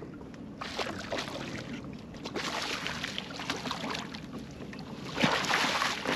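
A hooked fish thrashing and splashing at the water's surface beside a kayak, then being scooped into a landing net, with the loudest splashing about five seconds in.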